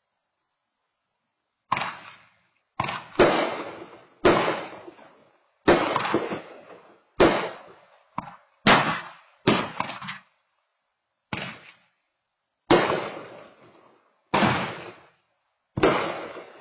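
A string of about a dozen loud firework bangs at irregular intervals, each a sharp crack that echoes away over about a second.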